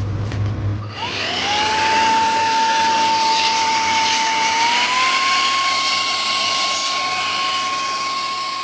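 Small electric blower motor switching on about a second in and running with a rush of air and a steady whine; the whine steps up in pitch about halfway through as the motor speeds up.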